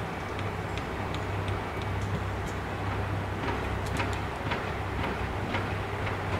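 JR Shikoku 2700-series diesel railcar idling at a standstill: a steady low engine hum. Sharp clicks and ticks come more often over the second half.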